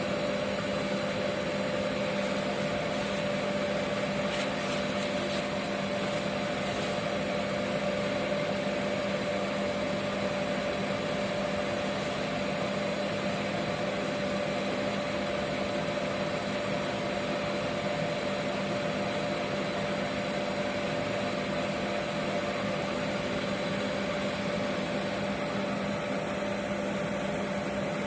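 Oil burner of a boiler running steadily: a constant mechanical hum with a steady tone over an even rushing noise.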